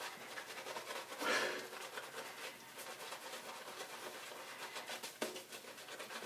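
Kent BK4 badger shaving brush being swirled over a wet face to build lather from hard shaving soap: a soft, rapid brushing with fine crackle, with a louder swish about a second in.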